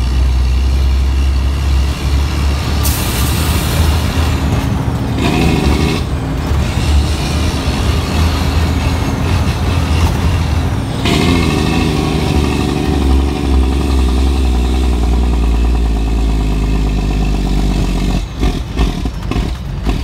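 Detroit Diesel 12.7-litre inline-six engine of a cabover dump truck running under way, a steady low drone whose note changes about five and eleven seconds in. A short hiss of air comes about three seconds in, and irregular knocks and rattles join near the end.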